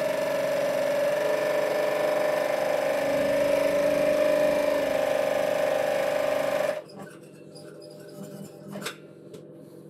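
Old electric sewing machine running steadily as it stitches fabric, its motor cutting off abruptly about seven seconds in. Afterwards faint rustling of fabric and a single sharp click near the end.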